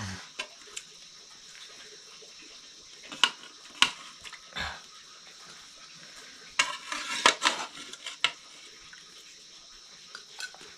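Metal spoon clinking and scraping against a steel cooking pot as boiled pork is lifted out. Irregular sharp clinks, with a busier run about two-thirds of the way through.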